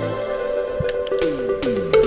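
Background music: sustained synth tones, then a few falling-pitch sweeps in the second half, building toward an electronic dance track.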